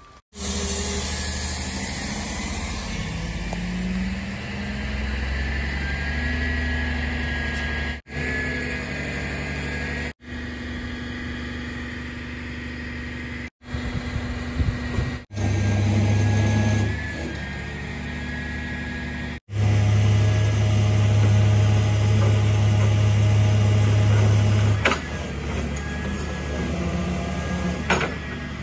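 Flatbed tow truck's engine running steadily, in several short clips that cut off abruptly. In two stretches, about halfway through and again for several seconds after, it runs louder with a strong low hum.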